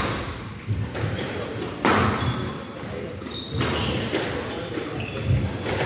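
Squash rally: the ball is struck by rackets and rebounds off the walls in a few sharp hits, roughly a second or two apart, with short squeaks of court shoes between them, in a large hall.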